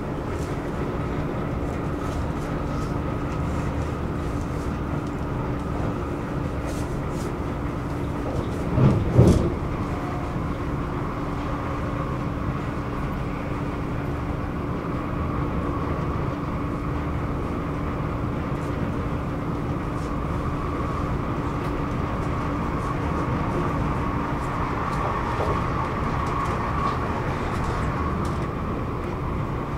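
Stockholm commuter train running along the track, heard on board: a steady rumble with a steady hum that stops near the end. About nine seconds in there is a brief, louder thud.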